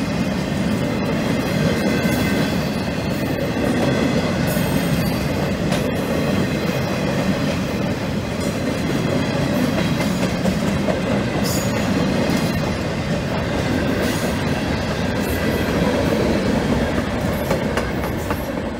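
Empty railroad flat cars of a freight train rolling past: a steady rumble of steel wheels on the rails, with scattered clicks at the rail joints and a thin high squeal of wheels.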